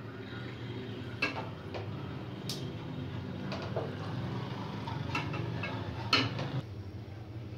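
A serving spoon scooping cooked chickpeas out of a steel kadhai into a glass bowl, with scattered knocks and taps as it strikes the pan and bowl, over a steady low hum.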